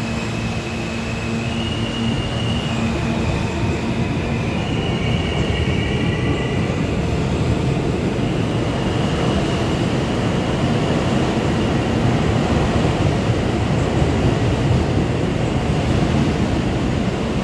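New York City subway train of R160 cars pulling out of the station and picking up speed, with a high whine in the first several seconds that fades into steady rumble and rail noise as the cars pass.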